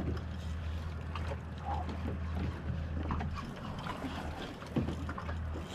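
Boat engine idling with a low steady hum, under wind and water noise.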